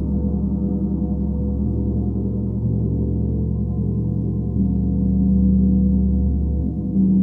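Planetary gong ringing as a sustained low drone of many overlapping tones, swelling louder about halfway through and again near the end.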